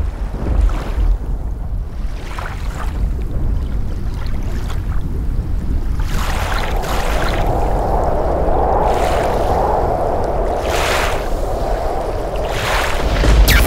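Watery ambient sound effects from a video-mapping show's soundtrack, played over loudspeakers: a noisy rushing wash over a deep rumble that thickens about six seconds in, with several brief whooshes.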